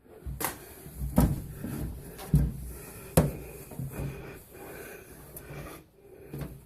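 Inside of a microwave being wiped with a cloth: rubbing with several sharp knocks against the cavity walls, most of them in the first few seconds.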